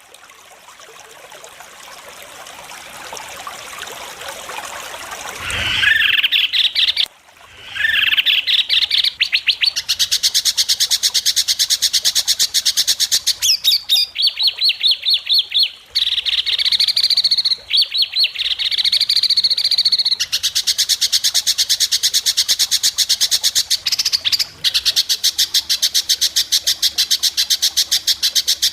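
White-rumped shama (murai batu) singing a long, very rapid rattling trill of sharp high notes, the 'besetan' prized in song contests, broken by a few brief pauses. It starts about eight seconds in, after a hiss that grows louder over the first six seconds.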